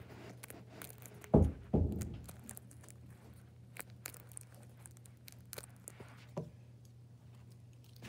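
Homemade paper fidget toy being pressed with the fingers, giving faint papery crinkles and small clicks, with two loud heavy thumps about a second and a half in. A steady low hum runs underneath.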